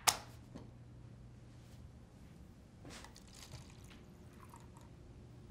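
A sharp knock right at the start, then water poured from a glass pitcher into a foam cup, faint over a low steady room hum.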